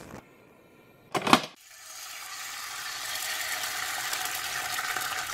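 Sound effects for a cooking channel's logo animation. A short clink at the start and a sharper double knock about a second in are followed by a hissing noise that swells over a couple of seconds and then holds.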